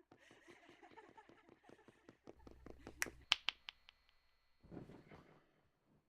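A quick run of small clicks, then three loud sharp snaps about three seconds in, the last trailing a brief thin ringing tone, and a short burst of noise near the end.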